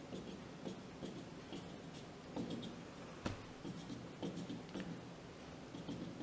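Marker drawing short dashes on a whiteboard: faint, irregular taps and brief scratchy strokes.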